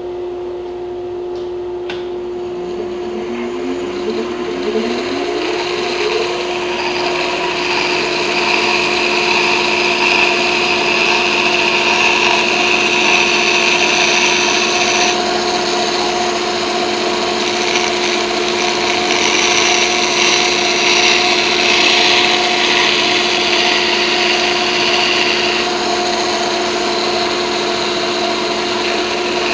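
Band saw running with a steady motor hum, then cutting through a laminated hardwood cutting board as it is fed by hand. The hiss of the blade in the wood gets louder from about seven seconds in.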